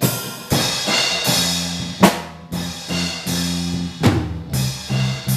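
A small rock band starts the song's intro right after a drumstick count-in: drum kit with loud crash hits at the start and about two seconds in, over held bass guitar notes and electric guitars.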